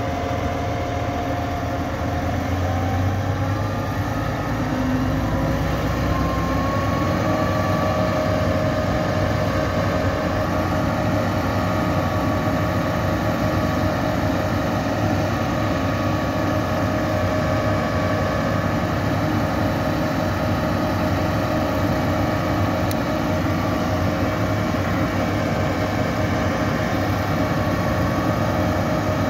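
Putzmeister 42 truck-mounted concrete boom pump running: the truck's diesel engine and hydraulic pump rise in pitch over the first several seconds, then hold a steady drone while the hydraulics work the boom on its newly repaired cylinders.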